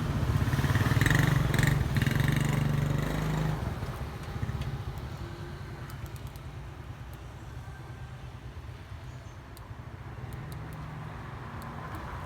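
An engine running with a steady low hum, loud for the first three and a half seconds and then dropping away to a quieter background.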